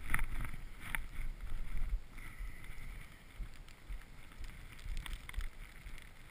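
Skis and poles moving through deep snow, giving several soft swishes and crunches, over wind rumbling on the camera microphone.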